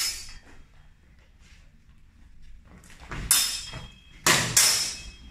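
Steel longsword training blades clashing: one sharp ringing contact at the start, then a louder run of three clashes between three and five seconds in, the blades ringing on after each.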